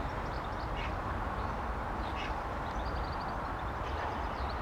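Steady outdoor background noise with a low rumble, and small birds chirping in short quick runs of high notes several times.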